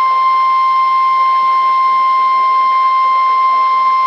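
NOAA Weather Radio 1050 Hz warning alarm tone: a loud, unbroken steady tone over radio hiss, the EAS attention signal sent ahead of a warning message.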